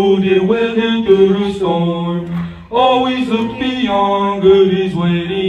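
Boys' choir singing, the voices breaking off briefly between phrases about two and a half seconds in.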